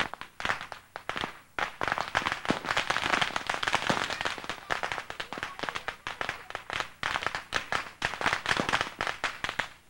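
Long strings of firecrackers hung on tall poles going off in a rapid, unbroken run of sharp bangs, many a second.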